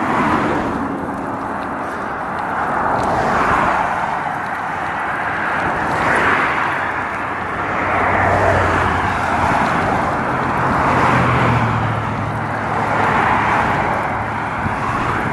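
Highway traffic passing close by: tyre and road noise swelling and fading as cars go past every couple of seconds, with a low engine hum in the middle.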